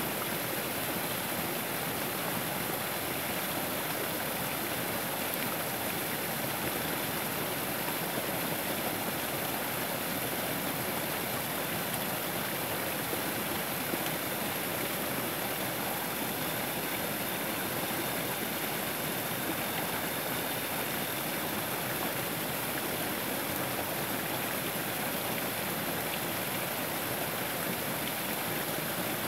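Small woodland waterfall: stream water pouring over a low drop of logs and sticks and splashing into a pool, a steady rushing sound.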